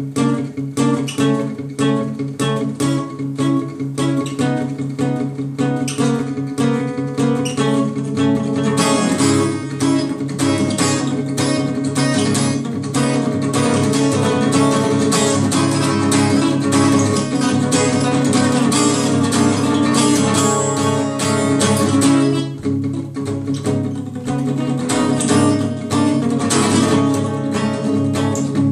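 Acoustic guitar played solo, improvised picking. About eight seconds in the notes turn quick and dense, holding until a little past twenty seconds, then ease back to sparser picking.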